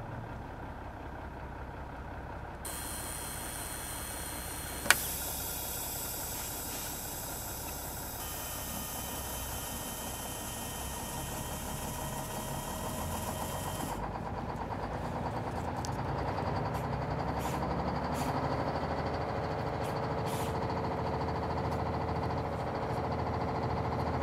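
Small electric motor of a cardboard RC tow truck running steadily, with a sharp click about five seconds in. The sound changes and grows somewhat louder in the second half.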